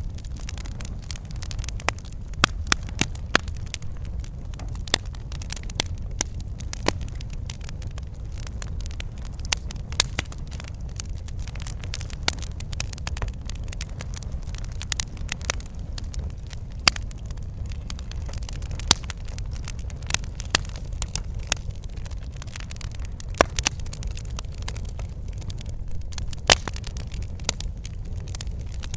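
Wood fire crackling and popping at irregular intervals over a steady low rumble of flames.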